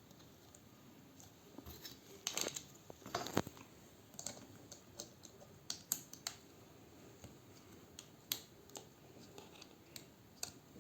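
Scattered small clicks and taps of hand tools working inside an opened iPad, irregular, with a cluster of louder taps about two to three and a half seconds in.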